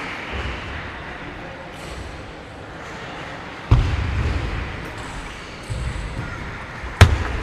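Table tennis play in a sports hall: two sharp knocks, each with a low thud, about three and a half and seven seconds in, the second the louder, over steady hall noise.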